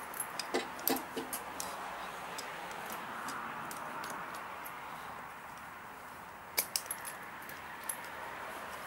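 Metal tire-chain links clinking and rattling as they are handled on a snowblower wheel: a quick run of clicks in the first second and a half, and another about six and a half seconds in.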